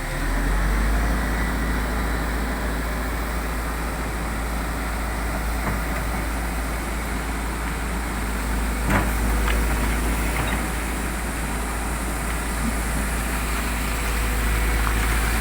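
Heavy diesel engine running steadily with a deep low rumble. A sharp metallic clank comes about nine seconds in.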